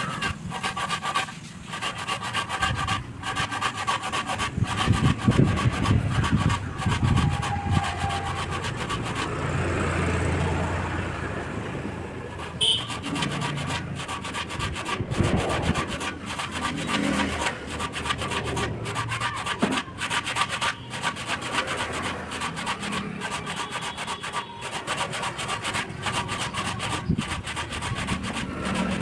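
Teak wood being worked by hand: continuous rubbing and scraping of wood on wood.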